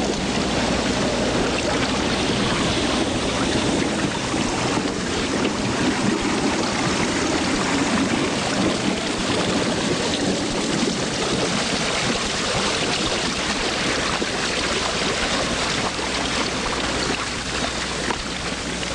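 Steady rushing wind and water noise aboard a small boat, with a low steady hum underneath.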